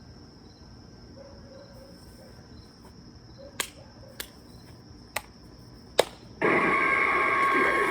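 Spirit Halloween Mr. Dark animatronic running its routine: a faint chirping background over a steady high tone, four sharp clicks, then a loud harsh sound starting about six and a half seconds in as the figure jumps.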